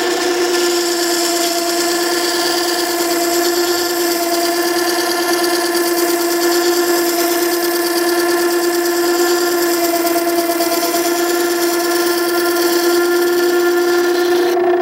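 Makita 9820 electric water-stone sharpener running while a chisel bevel is ground freehand on its coarse wet wheel: a steady pitched hum with a hiss over it. The hiss falls away right at the end.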